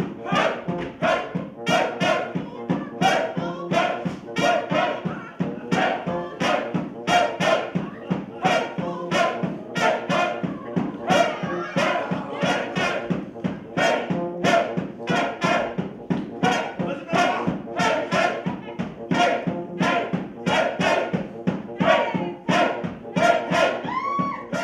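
Lively music with a steady beat of about two strokes a second over held notes. It cuts off abruptly at the end.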